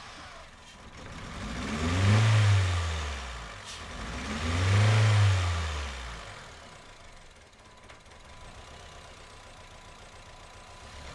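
Honda Civic's 1.4 i-VTEC four-cylinder engine running and revved up and back down twice, the second rev about three seconds after the first. The engine has a misfire on cylinders 3 and 4.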